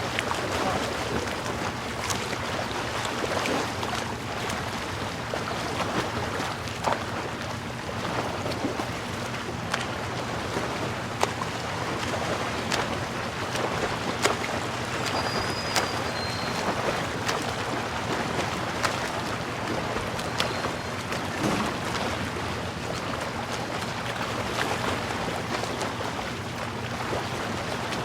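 Beach ambience: a steady wash of surf and wind, scattered with small clicks and crackles and a low steady hum underneath. A brief high two-note chirp comes about halfway through.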